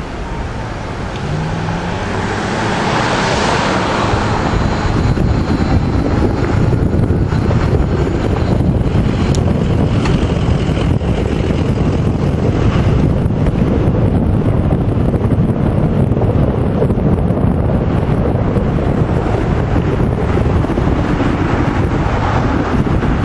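Wind buffeting the microphone of a moving electric bike, a dense rumble that builds over the first few seconds as the bike picks up speed and then stays steady.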